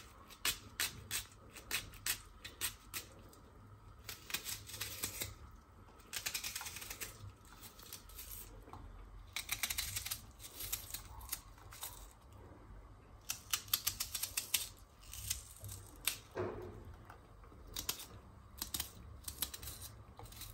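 Red onion being sliced in the hand with a kitchen knife: quick runs of crisp clicks and crunches as the blade cuts through the layers, with short pauses between the runs.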